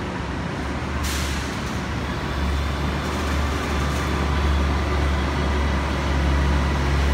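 Airport shuttle bus engine running in a steady low drone that grows louder a couple of seconds in as the bus pulls past. A sharp hiss of air brakes comes about a second in.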